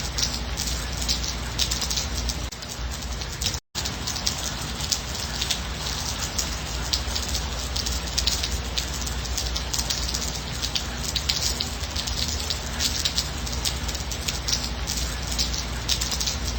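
Steady rain falling on a surface, with a dense patter of individual drop ticks over a low rumble. The sound cuts out for an instant about a third of the way in, then carries on unchanged.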